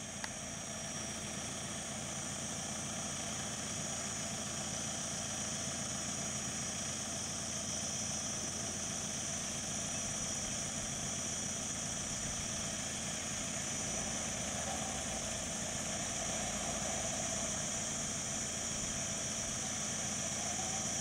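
Minivan's engine idling steadily, with a constant high-pitched hiss over it.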